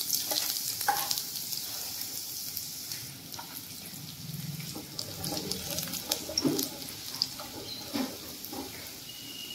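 Sliced garlic sizzling and crackling in hot mustard oil in a kadhai, the sizzle dying down over the first few seconds.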